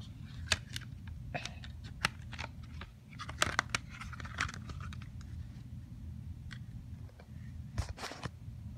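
Plastic CD jewel case and disc being handled: scattered clicks and taps, busiest about three and a half seconds in and again near the end, over a steady low hum.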